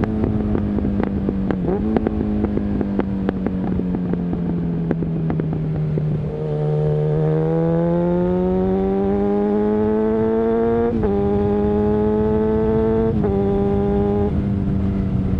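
Suzuki Bandit 650's inline-four engine through a Mivv exhaust, ridden on the road. The note holds and sags a little, then from about seven seconds in climbs under acceleration, broken by two upshifts, sudden drops in pitch about eleven and thirteen seconds in, before settling steady.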